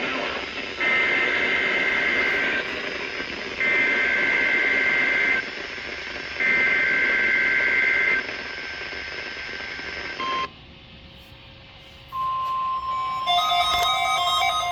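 Emergency Alert System data header: three bursts of two-tone electronic screech, each about two seconds long and a second apart, over a radio hiss. After a short beep and a brief quieter gap, a steady alert tone starts about 12 seconds in, and other tones layer over it near the end.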